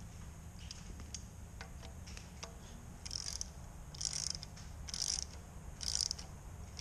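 Ratchet wrench clicking in short bursts about once a second from about three seconds in, as it tightens a coolant drain petcock's tapered pipe thread into the engine block. A few faint clicks come before that, while the petcock is turned in by hand.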